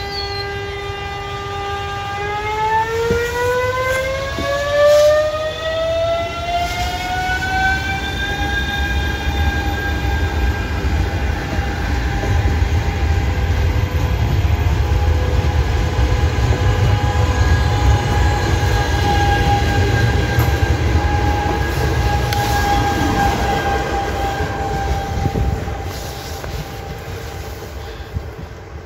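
Norwegian Type 73 electric multiple unit passing close, its electric drive whining with a high, steady pitch that climbs to about double over several seconds as the train gathers speed, then holds steady. Under the whine is a rolling rumble of wheels on rail, and everything fades near the end as the train moves away.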